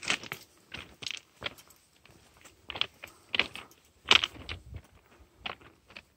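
Footsteps crunching on the gravel ballast of a railway track, in an uneven series of steps with short quiet gaps between them.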